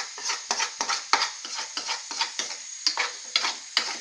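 A cooking utensil stirring and scraping mutton pepper chops around a pan, with irregular clinks and scrapes several times a second over a sizzle. The stirring keeps the thickening masala from sticking as it simmers.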